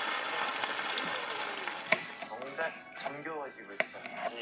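Beaten egg sizzling in a hot nonstick rectangular omelette pan just after it is poured in, the hiss fading over the first two seconds. Then two sharp taps of a knife cutting a red bell pepper on a cutting board.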